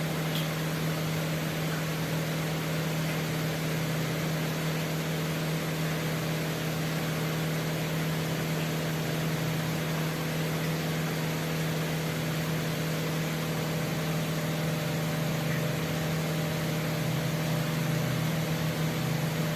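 Semi-automatic twin-tub washing machine running steadily: a constant motor hum over a rush of water as the spin tub rinses clothes, with tap water flowing in and draining out.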